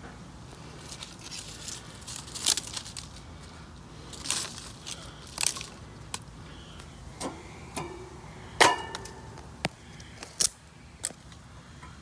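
Irregular sharp clicks and knocks of a stick against a York condenser's top grille and fan blades as the fan is prodded by hand, checking whether the fan motor turns freely or is seized; the loudest knock comes about two-thirds of the way in.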